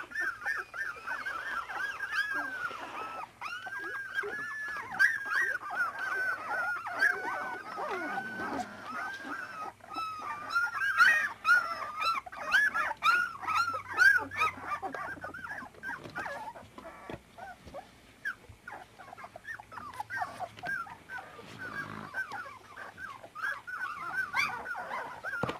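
A litter of 24-day-old puppies whimpering and squeaking: many short, high, rising-and-falling cries overlapping without a break, busiest about halfway through.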